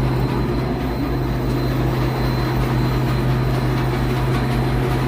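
Three-phase air-conditioning condensing unit running steadily: compressor hum under the noise of the condenser fan motor. That fan is the one the technician judges bad: noisy and overamping, tripping the system.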